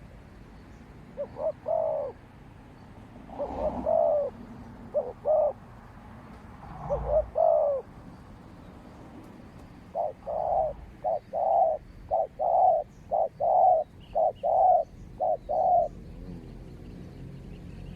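Spotted dove cooing: several short phrases, then a quicker run of about ten coos.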